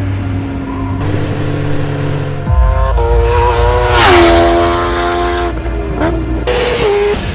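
High-revving sport motorcycle engine, as an edited sound effect. Its pitch holds steady, comes in louder about two and a half seconds in, dips and settles, then steps down again near the end, like gear changes.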